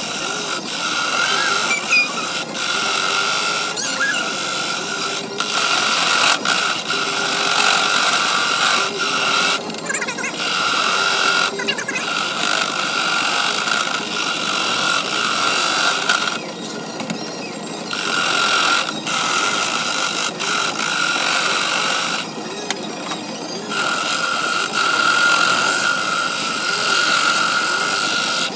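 Wood lathe spinning a small wooden blank while a hand-held turning gouge cuts it: a steady high-pitched whine with scraping. The cutting breaks off briefly about four times as the tool comes off the wood.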